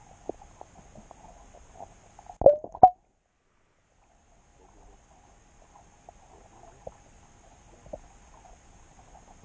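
Muffled underwater sound picked up through a submerged camera's housing: faint scattered clicks, then two loud knocks about two and a half seconds in. The sound then cuts out completely for about a second and a half before the faint clicking resumes.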